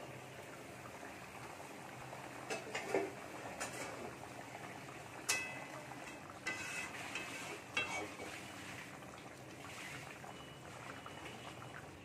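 A metal spatula clinking and scraping in an aluminium kadai of simmering fish curry, with several short ringing clinks about every second or two, over a steady hiss.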